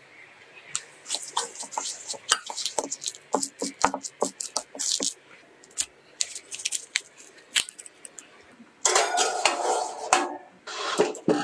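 Close-up kitchen handling sounds: a metal spoon tapping and scraping in a glass bowl, then mixture pressed into paper baking cups, with many sharp clicks. Near the end comes a longer rough scraping as a metal baking tray is slid into the oven.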